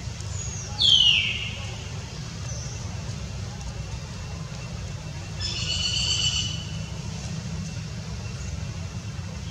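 Long-tailed macaque squeals. A loud, high squeal falls in pitch about a second in, and a shorter, steadier high squeal comes about six seconds in, over a steady low rumble.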